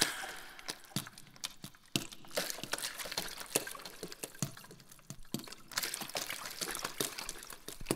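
Faint irregular clicks and ticks, several a second, over a low hiss.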